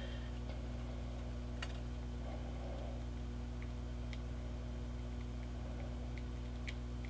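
A steady low electrical hum of room tone, with a few faint light ticks of fingers handling tiny wooden trusses and a glue bottle.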